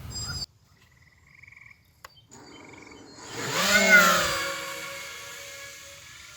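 Sound-effect soundtrack: short frog-like croaking calls, then about three seconds in a loud swell with a pitch that bends up and down, peaks, and slowly fades out.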